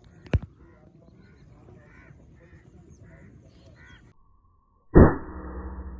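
Birds calling repeatedly, with a single sharp crack about a third of a second in. A little after four seconds the sound cuts off abruptly, and near five seconds a loud thump is followed by a steady low hum.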